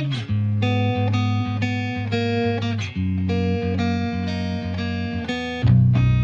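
Background music: a plucked guitar playing a melody of changing notes with a few strums, getting louder near the end.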